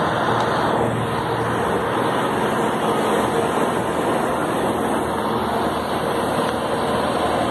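Steady hum and rush of a stainless-steel metro train standing at the platform with its doors open.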